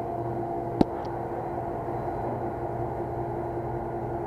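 Steady mechanical hum with a sharp single click a little under a second in.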